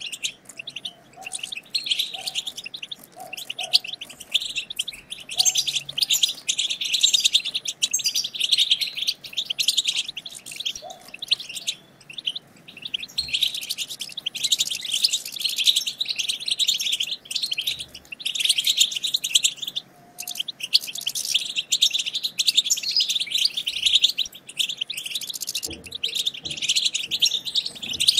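European goldfinches twittering: a fast, continuous chatter of high chirps and trills with only brief pauses.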